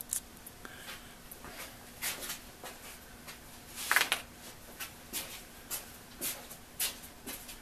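Scattered soft rustles and light clicks, the loudest about four seconds in, over a faint steady hum.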